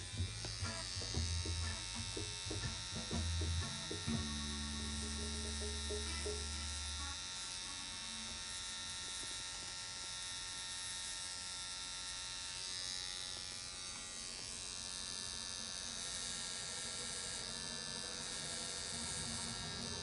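Electric tattoo machine buzzing steadily as it lines a freehand design into skin with a 9-round-liner needle. A low hum underneath stops about seven seconds in.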